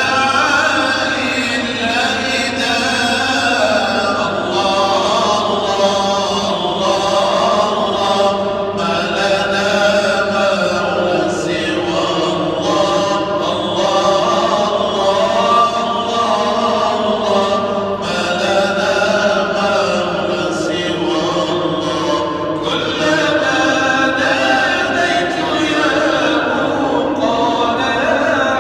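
A group of voices chanting a melodic religious chant together, with long held notes that rise and fall.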